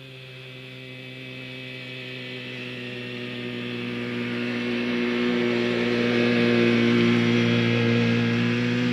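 Buran snowmobile's two-stroke engine running at a steady pitch, growing steadily louder as it approaches, then easing off slightly near the end.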